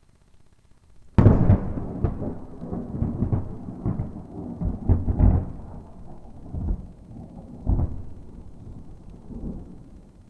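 Thunder: a sudden sharp crack about a second in, then a rolling rumble with several loud peaks that fades toward the end.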